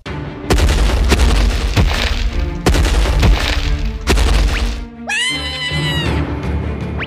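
Deep booming stomp sound effects for a giant dinosaur's footsteps, several heavy impacts over background music. About five seconds in, the booms stop and a high pitched sound that wavers up and down comes in.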